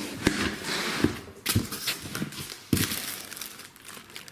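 Packing material rustling and crinkling in a cardboard box as it is unpacked, with a few sharp knocks, fading toward the end.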